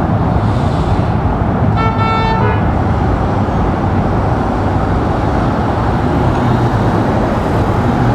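Steady road traffic noise, with a car horn sounding one short toot about two seconds in.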